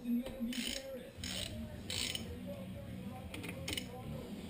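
A socket ratchet clicking in short strokes, about three strokes in the first two seconds, then a few sharp clicks: turning the connecting-rod bolts of an engine being taken apart.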